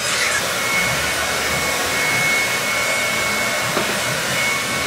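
Handheld hair dryer running steadily, an even blowing noise with a faint high whine.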